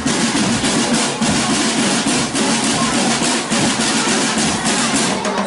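Marching drum band playing, with drums beating a dense, continuous rhythm.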